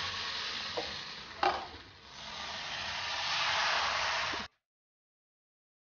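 Appam batter sizzling in a hot appam pan as it is swirled around the pan, with a single knock about one and a half seconds in. The sizzle fades, swells again, then stops abruptly.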